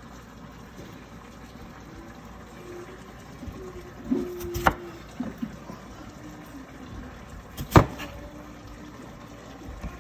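Kitchen knife cutting peeled potatoes on a wooden chopping board: two sharp knocks of the blade hitting the board, about three seconds apart, with softer knocks of handling in between, over a steady background hiss.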